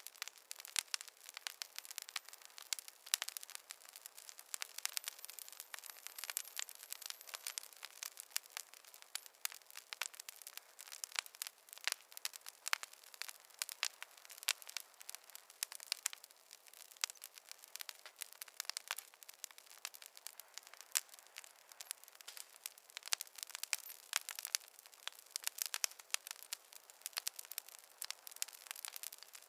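Wood fire crackling in a fireplace: a dense, continuous run of sharp pops and snaps over a soft hiss, with no low rumble.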